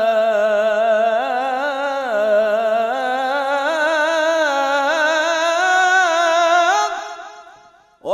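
A male munshid singing solo religious inshad, drawing out one long melismatic phrase with a quick, wavering vibrato as the pitch slowly climbs. The voice fades out about seven seconds in, and a new phrase starts right at the end.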